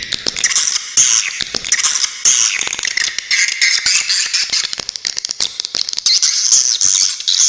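Swiftlet calls: a dense, continuous twittering of rapid clicks and high, buzzy chirps.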